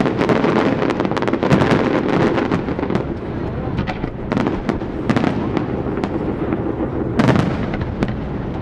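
Aerial fireworks display: shell bursts and crackling overlapping in a dense, continuous barrage of sharp bangs, with a heavy cluster about two seconds in and another strong burst near the end.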